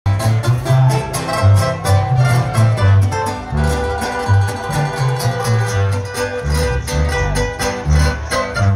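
A live regional Mexican band playing a corrido, heard from the crowd: a tuba carries a pulsing bass line under strummed acoustic guitars and a steady drum beat.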